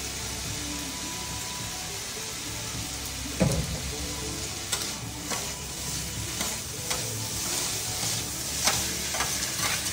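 Flat rice noodles and vegetables sizzling on a flat-top griddle with a steady hiss. About three and a half seconds in there is a loud knock. After that, two metal spatulas scrape and clack against the griddle plate, one or two strokes a second, as the noodles are tossed.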